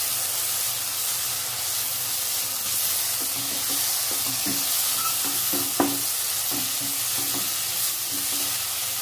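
Onion-tomato masala with freshly added curry powder sizzling in oil in a nonstick pan, stirred with a wooden spatula. The spatula scrapes and knocks against the pan irregularly from about three seconds in, with one sharper knock about halfway through.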